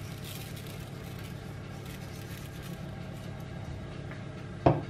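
Steady low kitchen hum, with one sharp knock of kitchenware against the worktop near the end.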